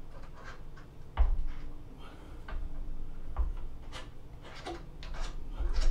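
Clicks, knocks and three low thumps, the loudest about a second in, as a 14-inch Celestron telescope tube's dovetail bar is worked into the saddle of an iOptron CEM70 mount by hand.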